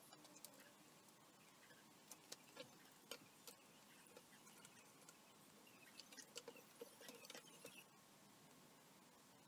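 Near silence, with faint scattered clicks and taps of metal clamps being fitted and tightened on a glued wooden frame; the clicks cluster in two spells, a few seconds in and again near the end.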